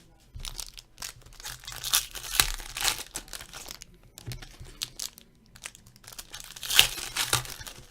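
Trading card pack wrappers being torn open and crumpled by hand, an irregular crinkling and ripping that peaks in a loud rip near the end.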